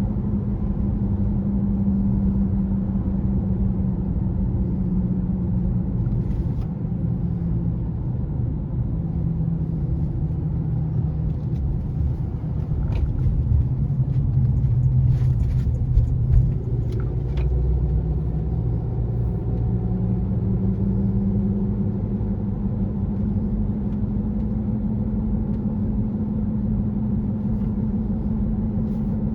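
2018 Honda CR-V driving with a loud, steady hum over low road rumble. The hum dips in pitch midway and rises again near the end. The owner wonders whether a bad hub assembly or bad tires cause it; the hum was not heard with the front wheels lifted.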